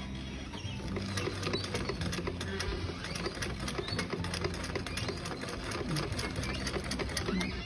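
Sewing machine stitching through layered fabric, its needle running in rapid, even strokes at a steady speed.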